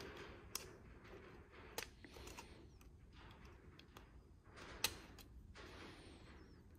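Faint scraping and rustling with a few sharp clicks as a new pull cord is worked through a Honda mower's plastic recoil starter pulley with a thin metal tool; the loudest click comes about five seconds in.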